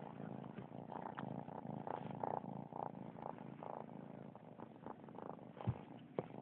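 Domestic cat purring right at the microphone, a steady pulsing rumble, with two short soft knocks near the end.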